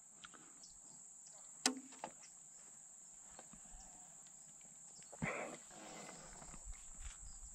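Faint steady high-pitched chirring of crickets, with a single light click about a second and a half in and a brief rustle about five seconds in as the bow is raised and drawn.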